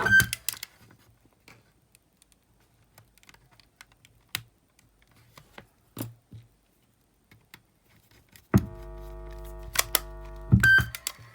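Small plastic clicks of a cassette Walkman's mechanism and case being handled: a few sharp clicks as the music stops, then scattered faint ones. About two-thirds of the way in a steady hum starts, broken by more loud clicks, and cuts off near the end.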